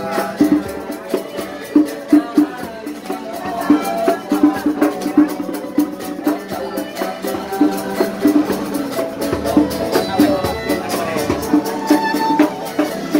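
Street musicians playing a song: drums beat a steady rhythm, a shaker ticks along, and a melody wavers over them.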